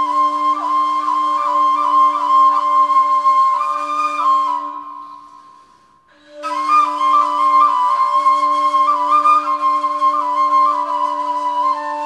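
Two Turkish kavals (end-blown rim flutes) improvising together: a steady low note holds under a melody full of quick ornaments. The phrase fades out about four and a half seconds in, and both come back together about two seconds later.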